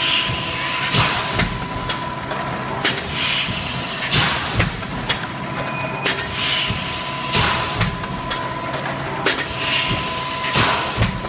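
SP 750 plastic cup thermoforming machine running: a steady hum with sharp clacks and knocks from its moving parts, and a burst of hiss about every three seconds.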